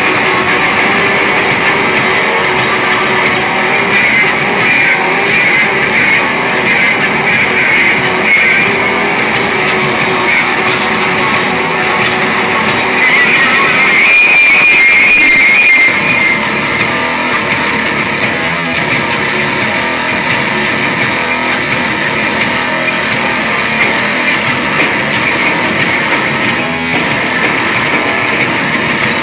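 Live noise-rock duo of heavily distorted bass guitar and pounding drums playing loud and dense, heard from the crowd. About halfway through, a shrill high-pitched squeal rises over the music for a couple of seconds.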